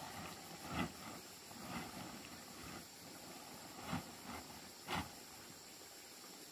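Blue plastic tarpaulin rustling and crinkling in a handful of short bursts as it is pulled and smoothed over a rack of drying corn cobs. The sharpest rustle comes about five seconds in.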